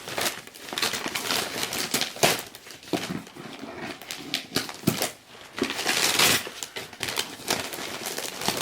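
Packaging crinkling and rustling as a present is unwrapped and handled, in irregular bursts with a few sharp clicks, the longest rustle about six seconds in.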